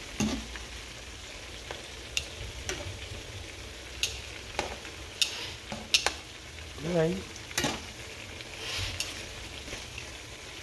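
Chicken wings frying in hot oil in a metal frying pan, a steady sizzle, with metal tongs clicking and scraping against the pan a dozen or so times as the pieces are moved.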